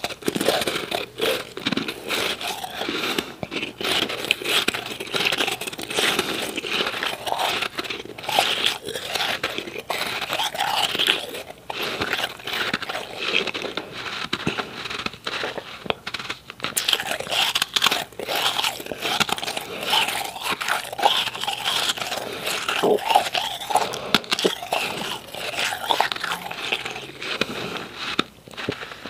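Close-miked chewing of a mouthful of powdery refrozen ice: a dense, continuous run of crunches and fine crackles, with a few short pauses.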